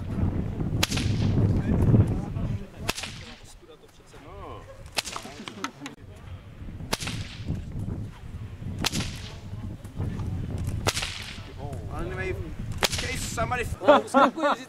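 Bullwhip cracking: about seven sharp cracks, evenly spaced roughly two seconds apart, as the whip is cracked again and again to knock small targets off a bench.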